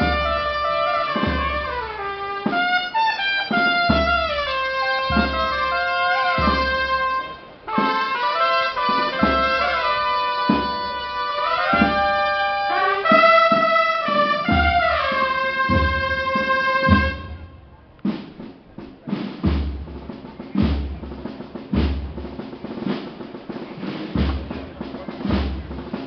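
Procession brass band playing a slow march, held brass notes over a bass drum beating about once a second. About 17 seconds in the brass stops and the drums carry on alone, snare strokes over the bass drum.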